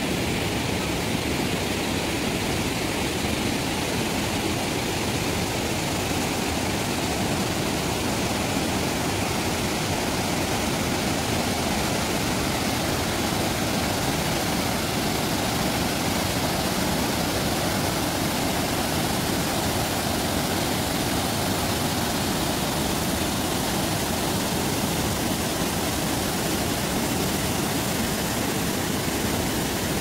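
Waterfall and river rapids: a steady, unbroken rush of water pouring over rock ledges and churning through a gorge.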